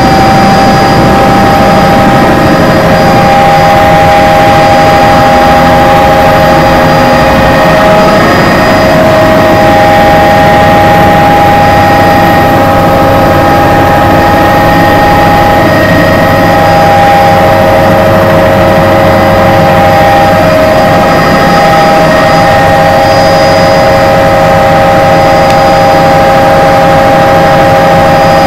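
Helicopter turbine engine and rotor heard from inside the cabin: a very loud, steady drone with a high turbine whine, as the helicopter lifts off and climbs.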